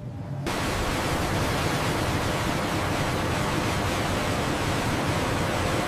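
Liquid pouring in heavy streams into large steel vats: a steady rushing noise that starts abruptly about half a second in and holds even.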